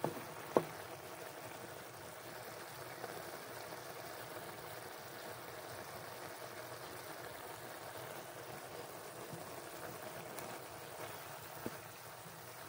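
Broccoli, chicken and tofu simmering in sauce in a wok: a steady, soft bubbling hiss, with one sharp tap about half a second in.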